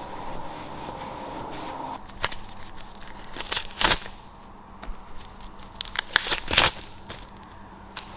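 Microfiber towels being handled on a concrete floor: a string of short rustling, scuffing strokes, the loudest about four and six and a half seconds in. A steady hum runs underneath for the first two seconds.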